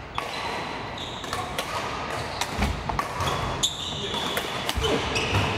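Badminton play in a large hall: repeated sharp hits of rackets on the shuttlecock, with short high squeaks of shoes on the wooden court floor. Voices sound in the background.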